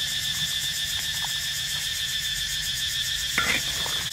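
A steady, high insect chorus drones over a low rumble. About three and a half seconds in comes a short clatter, as hot boiled pork is tipped from a wire strainer into a bamboo basket.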